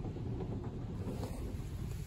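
Washworld Razor in-bay car wash spraying foam and water over the car, heard from inside the cabin as a steady muffled rush over a low rumble.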